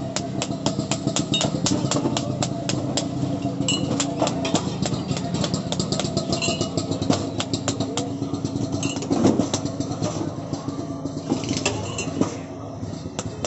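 A small engine running steadily: a low drone with rapid, uneven ticking that eases a little near the end.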